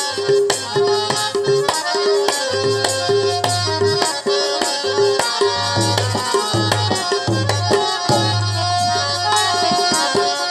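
Instrumental break in a qawwali: tabla playing a quick steady rhythm with deep bass strokes, under a harmonium repeating short melodic notes.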